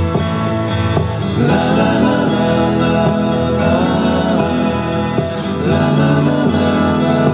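Background music with guitar, possibly with singing, playing steadily.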